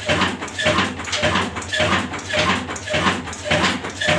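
Old Insaf Daska horizontal single-cylinder diesel engine with a big flywheel, running slowly and steadily with an even beat of about two strokes a second.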